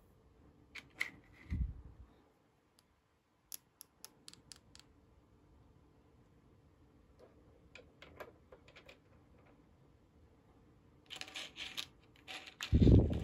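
Small plastic toy kitchen pieces clicking and tapping as they are handled and set down. There is a soft thump about a second and a half in, a rustle near the end, and a louder thump just before the end.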